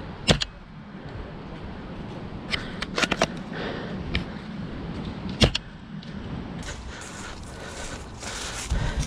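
Sharp snaps and clicks from an airsoft sniper rifle being fired and handled: a double snap just after the start, a quick cluster of clicks about three seconds in, and the loudest snap about five and a half seconds in. Near the end come rustling footsteps through dry leaf litter.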